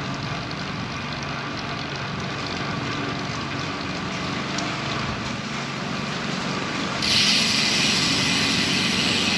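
Riding noise of a road bike under way: wind rushing over the camera microphone and tyres rolling on a concrete street, with a steady hiss that grows louder about seven seconds in.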